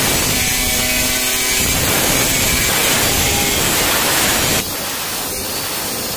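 Handheld angle grinder with a thin cutting disc cutting through iron sheet: a steady harsh grinding hiss. The level drops a little about four and a half seconds in.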